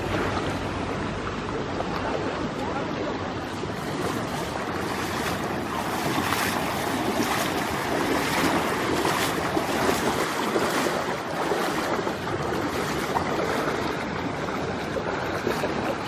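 Shallow river running over rocks, with people wading through it; their legs splash through the water in a run of strokes in the middle.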